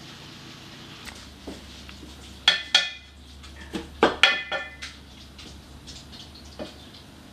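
Kitchen clatter of cooking: a wooden spoon stirring in a stainless steel pot, with a few scattered knocks and sharp ringing clinks, two pairs of them about two and a half and four seconds in.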